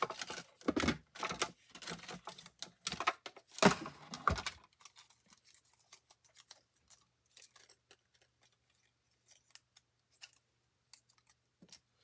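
Handling of a small manual die-cutting machine, its cutting plates, a thin metal die and die-cut cardstock: a run of clicks, clacks and paper rustles over the first four or five seconds, then only occasional faint taps.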